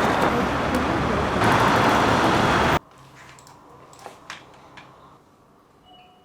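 Loud steady noise that cuts off abruptly about three seconds in, followed by a quiet room with a few faint knocks.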